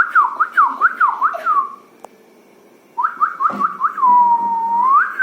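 Clear whistling in quick falling notes, about four a second, that stops just under two seconds in. After a pause of about a second it starts again with a few quick notes, then holds one long note that dips and sweeps up sharply near the end.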